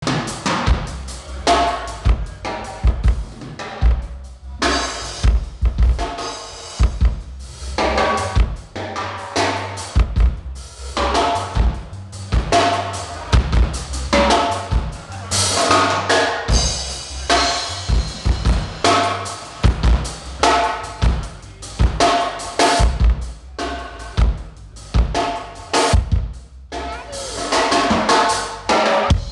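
Drum kit played at a sound check: a steady pattern of bass drum and snare hits, with a few longer, brighter crashes about five seconds in, midway and near the end.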